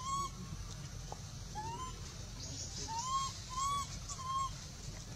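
An animal calling five times: short clear calls, each rising and then levelling off, about a third of a second long, three of them close together around the middle.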